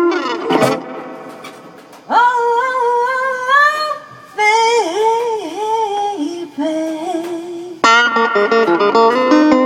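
Live guitar-and-voice music: a guitar fades away, then a voice sings long held notes that bend and waver, and guitar chords come back in near the end.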